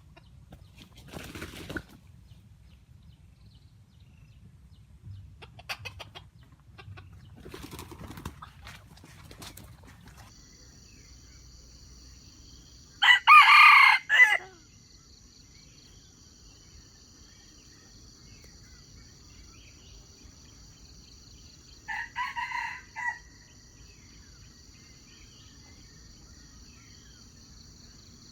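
Red junglefowl roosters crowing: one loud, short crow about halfway through and a fainter crow later. Brief rustling comes before the crows, and a steady high whine runs underneath from about a third of the way in.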